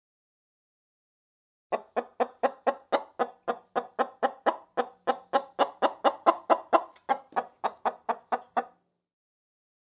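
Chicken clucking in a long, even run of short clucks, about four a second, starting a couple of seconds in and stopping about seven seconds later.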